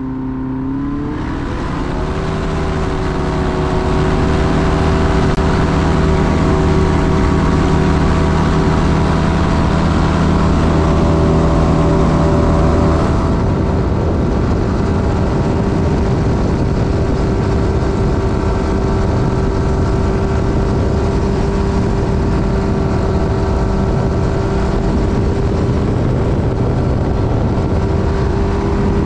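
Light bushplane's Rotax four-cylinder engine and propeller at takeoff power, heard from inside the cabin. The engine note rises to full power over the first two seconds and then holds steady through the takeoff roll and climb-out.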